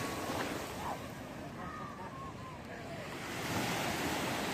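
A steady rushing noise, like surf or wind, that dips in the middle and swells again near the end, with a few faint short whistling glides in the middle.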